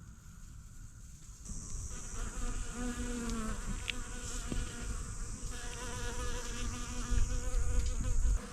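Many bees buzzing together while feeding on small flowers, a dense overlapping drone at several pitches that swells in about a second and a half in.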